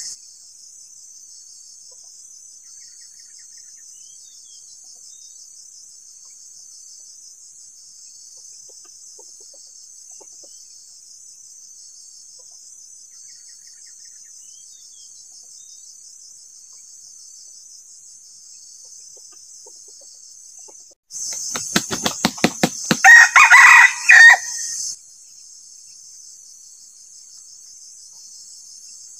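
A decoy junglefowl rooster (ayam pikat) crows once, loud and short, about three-quarters of the way in, right after a quick run of sharp beats. A steady high insect trill sounds underneath. It is the crow used to provoke and lure wild red junglefowl.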